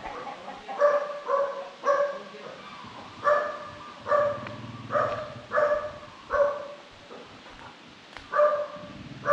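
Repeated short animal calls, about nine of them, each held at a steady pitch, coming every half second to a second and thinning out near the end.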